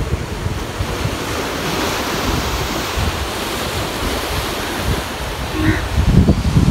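Wind buffeting the microphone over a steady rushing hiss of sea surf washing on rocks. The gusts grow stronger near the end.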